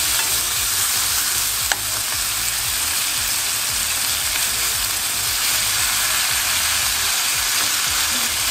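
Thin slices of beef tongue sizzling in a hot nonstick pan over high heat while being stirred with chopsticks. A sharp click about two seconds in.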